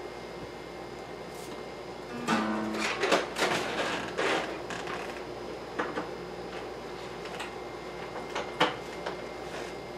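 A few short pitched notes about two seconds in, followed by a run of sharp knocks and clunks over the next couple of seconds and a few single knocks later. The knocks fit handling and plugging in a digital piano during setup.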